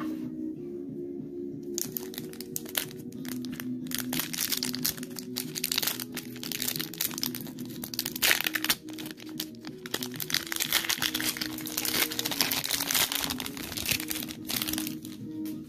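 Crinkling and crackling of a foil Pokémon booster pack wrapper as it is handled and torn open by hand, starting about two seconds in and stopping near the end. Background music with a steady stepped melody plays under it.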